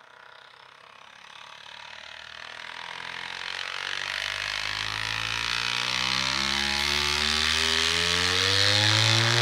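Two JBL TI-100 5.25-inch woofers with worn, torn foam surrounds, driven in free air by a low bass test tone. The tone grows steadily louder, has strong overtones and starts to rise in pitch near the end.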